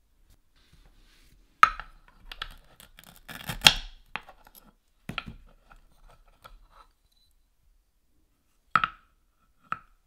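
Wooden toy fruit clacking and scraping against a wooden cutting board as pieces are handled, in a busy flurry of knocks. Near the end come two short rasping rips as the velcro-joined halves of a wooden toy carrot are pulled apart.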